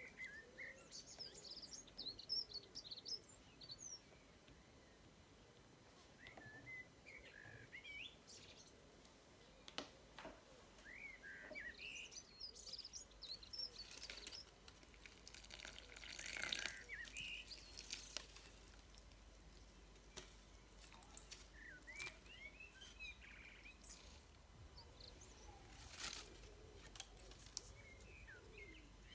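Faint birdsong: small birds chirping and twittering in short, scattered phrases, with a few sharp clicks and a brief burst of noise about halfway through.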